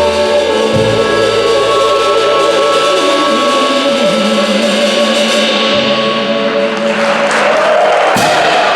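Voices singing a song's closing phrase over harmonium drones, with long held notes and a bass line, ending on a sharp final hit just after eight seconds in. Audience applause starts swelling about seven seconds in, under the last notes.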